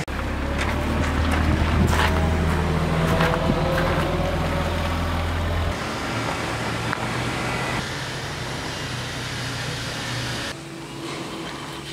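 An engine running with a steady low drone; the background sound changes abruptly about halfway through and again near the end.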